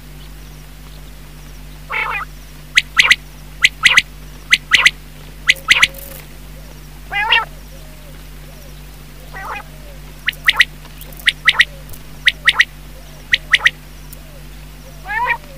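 Quail calling: sharp, loud short notes in quick groups of two or three, repeated every second or so, with a few rasping trilled calls among them. It is a lure call for quail hunting.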